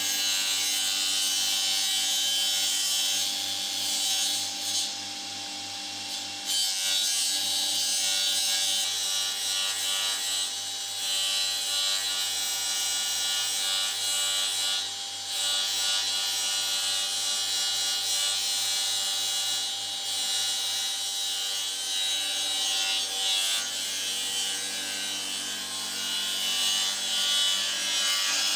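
Small benchtop table saw running steadily while thin 5 × 5 mm lime-wood (linden) strips are fed through the blade. The high hiss of the cut drops away briefly several times between strips, leaving the motor's hum.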